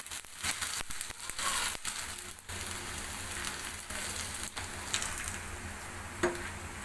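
Hot oil sizzling and crackling as dried rice-paste pitha (patar pitha) fries and puffs up in the pan, with clicks and scrapes of a metal spatula against the pan, most of them in the first couple of seconds; a sharper knock about six seconds in.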